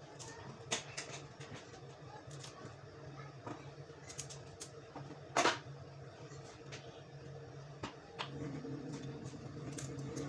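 Kitchen knife tapping on a wooden cutting board while string beans are chopped: scattered, irregular taps, with one louder knock about halfway through. A steady low hum runs underneath.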